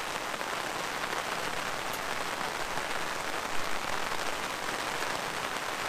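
Heavy rain falling steadily on the fabric canopy of a fishing brolly, heard from underneath it.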